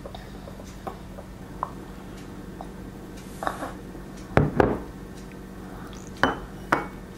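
A few light knocks and clinks of cups against a stone countertop, the loudest about four and a half seconds in, over a steady low hum.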